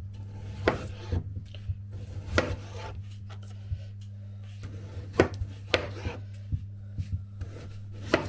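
Knife chopping food on a cutting board: irregular sharp knocks, some louder than others, over a steady low hum.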